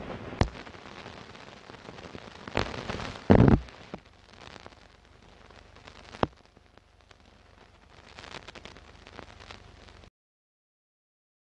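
Crackle and hiss of old film soundtrack noise, with scattered sharp pops and a louder low thump about three seconds in. It cuts off suddenly about ten seconds in.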